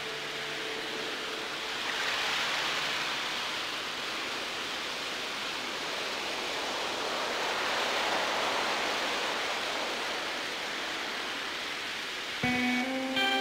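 A rushing, surf-like noise effect inside a music track, swelling and easing slowly twice. Pitched instrumental notes come back in about a second before the end.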